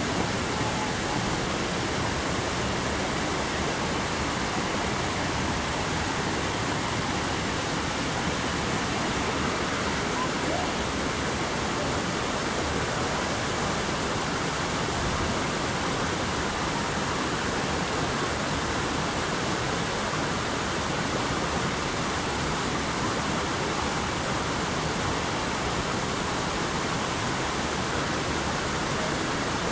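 Steady rush of flowing, falling water.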